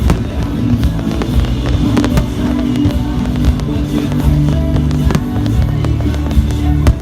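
Fireworks going off in several sharp bangs over loud music.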